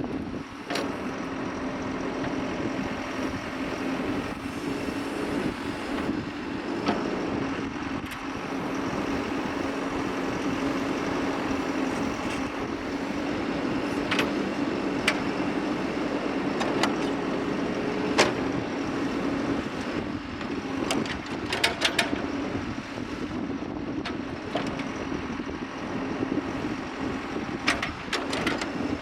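John Deere 410L loader backhoe's diesel engine running steadily, with scattered sharp clanks and knocks from the machine, a cluster of them about three quarters of the way through and more near the end.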